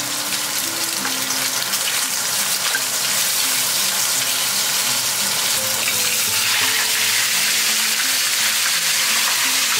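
Sliced pork belly sizzling in hot oil in a wok as it renders its fat, stirred with a wooden spatula. About six seconds in the sizzle gets louder as a whole stinky mandarin fish goes into the wok to fry.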